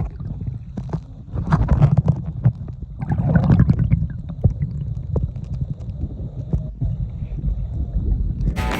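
Muffled underwater sound picked up by a phone in a waterproof pouch: low rumbling water movement with scattered clicks and crackles. Music starts right at the end.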